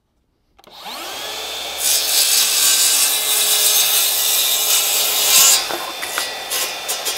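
Dual-battery Makita cordless circular saw starting about half a second in, its motor whine rising to speed, then cutting shallow notch kerfs into plywood for about four seconds. The cutting stops before the end and the saw runs on more quietly.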